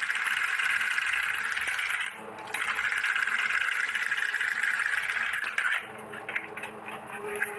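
A steady hissing rush in two spells, the first about two seconds long and the second about three, followed by a few light metallic clinks and taps from handling miniature steel toy kitchenware.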